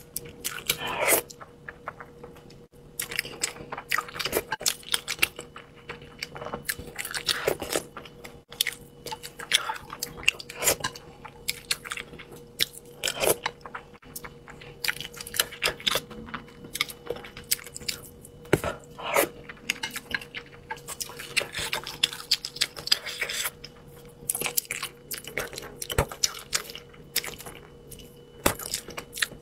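Close-miked eating: a woman chewing and biting spicy braised fish and enoki mushrooms, with many short, uneven wet mouth clicks and smacks. A faint steady hum runs underneath.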